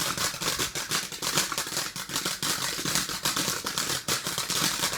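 Firework crackling: a dense, irregular run of rapid small pops and cracks that goes on steadily.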